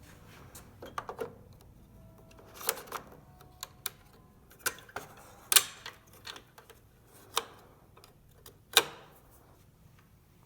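Irregular clicks and knocks of HP Z3200 printer parts and tools being handled and fitted during reassembly. About a dozen sharp hits come spaced apart, the loudest about halfway through and again near the end.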